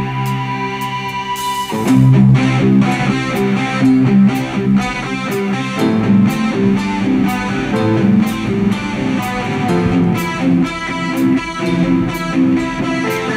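Live rock band playing: a held keyboard chord, then electric guitar and drums come in about two seconds in and the band plays on with a steady beat.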